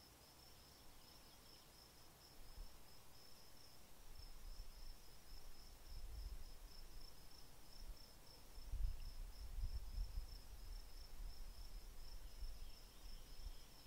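Crickets chirping in a steady, high, pulsing trill. A low rumble comes and goes underneath, strongest a little past the middle.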